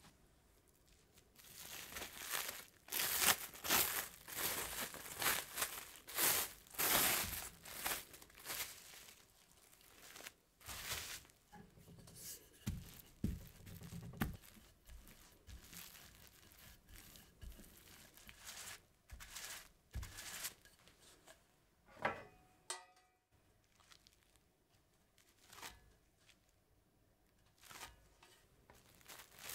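Plastic cling film crinkling in a dense run for several seconds as it is unwrapped and spread out. Then a wooden rolling pin rolls cookie dough flat between sheets of the film, with a few dull rolling sounds and scattered crinkles of the plastic.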